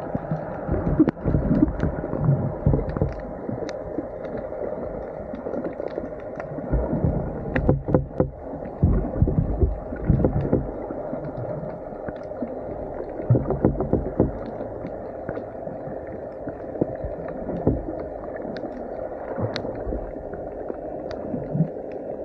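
Muffled underwater sound picked up by a camera held under water: uneven low surges and sloshing of water with a steady hum underneath, and scattered faint clicks.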